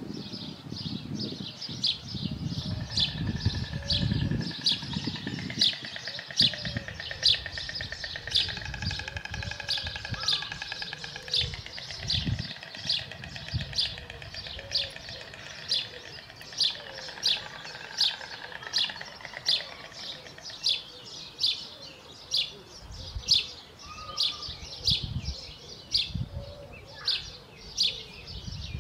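A small bird calling over and over with a short, sharp, high note, about one and a half calls a second at an even pace, with fainter whistling from other birds behind it.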